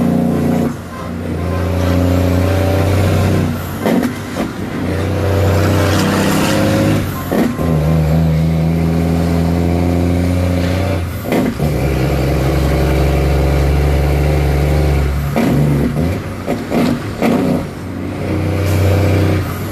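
Heavy truck's diesel engine running under load, heard from inside the cab. The sound breaks off briefly every few seconds as the driver changes gear, and comes back at a different pitch after each shift.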